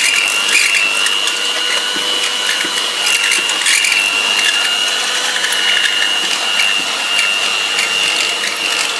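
Electric hand mixer running steadily, its beaters whipping thick cake batter in a bowl. It has a constant high whine, with short clicks scattered through it.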